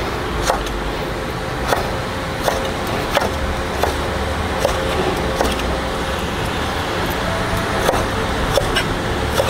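Kitchen knife chopping tomatoes on a wooden cutting board: about ten sharp knocks of the blade on the board, spaced unevenly, over a steady low background rumble.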